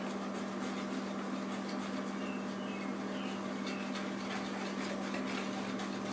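Pancake batter being stirred by hand in a plastic mixing bowl: a run of light, irregular clicks and scrapes over a steady low hum.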